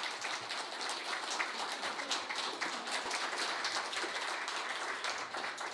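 Audience applauding steadily: a dense spatter of hand claps.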